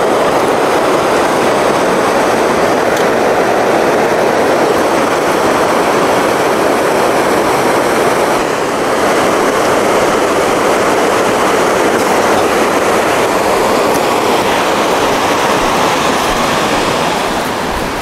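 Steady, loud rushing of a fast-flowing river close by, an even noise with no rhythm that eases slightly near the end.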